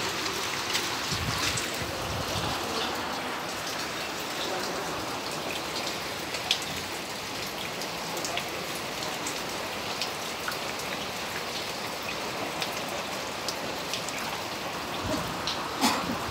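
Steady heavy rain falling onto floodwater, with many short drop ticks close by. A few low thuds come in briefly near the start and again near the end.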